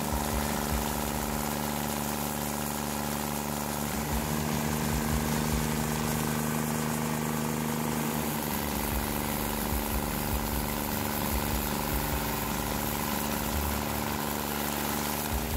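Carlton SP7015 stump grinder's engine running steadily as its spinning cutter wheel grinds into a tree stump.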